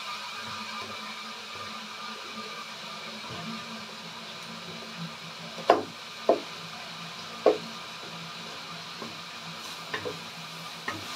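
Wooden spatula stirring squid and onions in a wok, knocking against the pan, over a low steady frying sizzle. Three sharp knocks come about halfway through, with a few fainter taps near the end.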